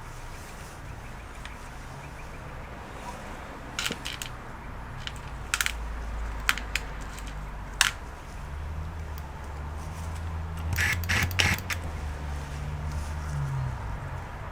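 Scattered light clicks and taps from laptop casing parts and small tools being handled, over a low hum that grows louder past the middle.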